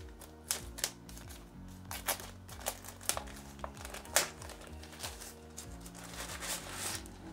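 Plastic bag crinkling as it is handled, with several sharp crackles and a longer rustle about six seconds in, over soft background music.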